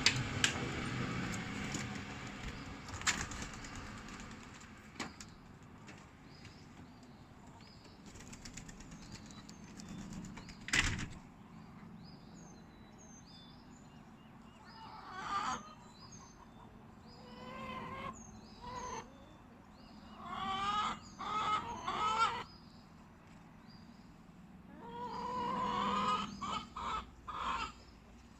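A tree coming down: a loud rushing of branches and leaves that dies away over the first few seconds, with sharp cracks, then a single loud crack about eleven seconds in. From about fifteen seconds on, birds call in repeated bursts.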